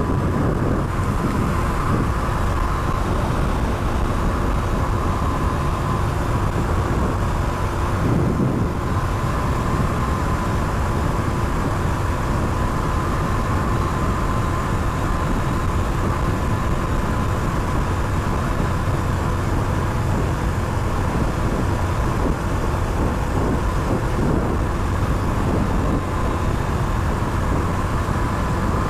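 Suzuki GR150's single-cylinder four-stroke engine running steadily at highway cruising speed, mixed with constant wind and road noise on the helmet microphone and a thin steady whine.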